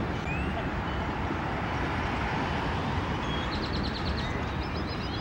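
City outdoor ambience: a steady rumble of distant traffic, with birds chirping over it and a quick run of chirps around three and a half to four and a half seconds in.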